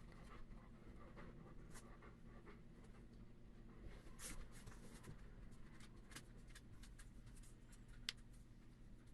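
Near silence: faint room tone with scattered light ticks and scratches, the sharpest about eight seconds in.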